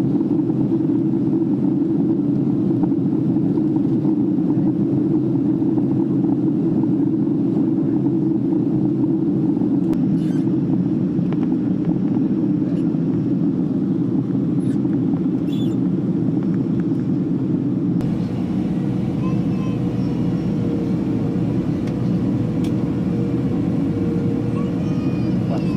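Steady cabin roar of a Boeing 767 in flight: engine and airflow noise heard from inside the passenger cabin. About two-thirds of the way through the sound shifts abruptly and a faint steady hum joins the roar.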